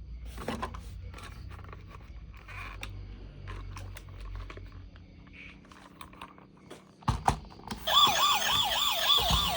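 Light clicks and taps, then a couple of louder knocks, and about eight seconds in a toy emergency vehicle's electronic siren starts, wailing up and down quickly, about four times a second.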